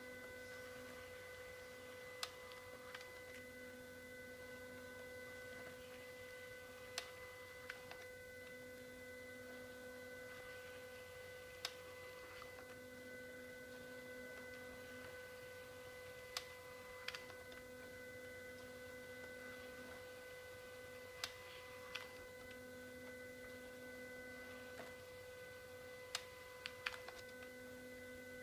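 Fujitsu ScanSnap iX500 sheet-fed scanner running a slow high-quality photo scan. A faint steady whine sits under a lower motor tone that switches on and off every couple of seconds. Sharp clicks come every five seconds or so as each photo feeds through.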